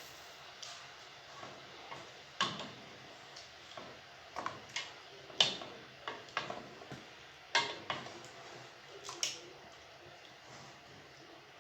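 Irregular light knocks and clicks of kitchen utensils against cookware, about a dozen spread unevenly through the stretch, the loudest a little past the middle.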